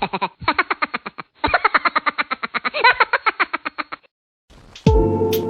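A rapidly pulsing pitched sound, about ten pulses a second, in three bursts that stop about four seconds in; music starts near the end.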